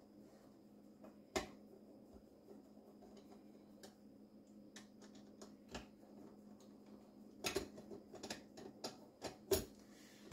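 Sparse light clicks and small metallic taps of hand tools and fittings being worked under a kitchen sink, with a quicker run of them near the end, over a faint steady low hum.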